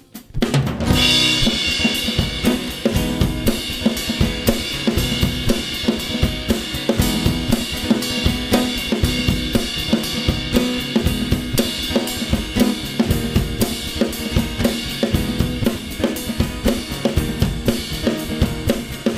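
Full drum kit playing a steady rock beat on snare, bass drum, hi-hat and cymbals, with guitar chords under it. It comes in with a cymbal crash after a brief drop-out about half a second in.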